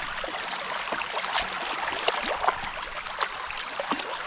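Shallow creek water running, with small irregular splashes from Shih Tzus drinking and playing at the water's edge.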